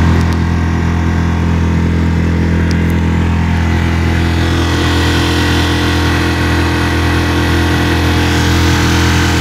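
Mercury 3.5 hp outboard motor running at a steady, unchanging pitch under way, with water rushing from the wake growing louder from about halfway.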